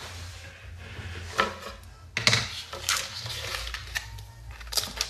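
Oysters in plastic packets handled on a wooden board: a string of light clicks and knocks, shell and plastic against wood, with a faint steady low hum behind.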